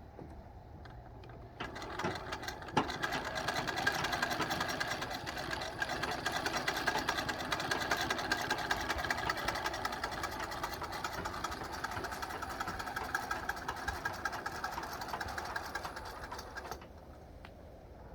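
1898 Singer Model 27 'Sphinx' treadle sewing machine running, a fast, even clatter of the needle mechanism that starts about two seconds in and stops shortly before the end.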